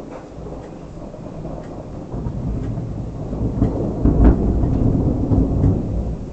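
Thunder rumbling: a deep roll that builds about two seconds in, is loudest a little after four seconds, then eases off.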